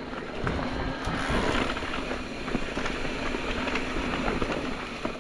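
Electric mountain bike rolling along a dirt singletrack trail: a steady rush of tyre and wind noise, with many small clicks and rattles from the bike over the rough ground.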